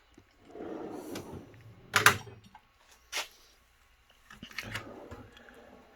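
Metal drawers of a Harbor Freight 10-drawer tool cart sliding on their tracks, with tools shifting inside, and a sharp clack of a drawer shutting about two seconds in and another about a second later.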